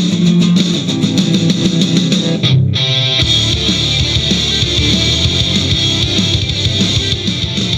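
Guitar music with electric guitar and bass, played through Technical Pro MR S5 studio monitor speakers and picked up by a microphone. About two and a half seconds in the music briefly dips, and a different, steadier bass part comes in.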